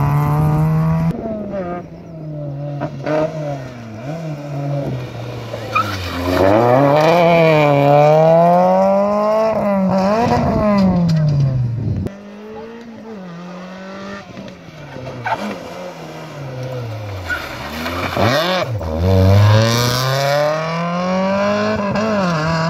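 Rally car engine revving hard and dropping back again and again through gear changes and braking. It is loudest about a third of the way in and again near the end.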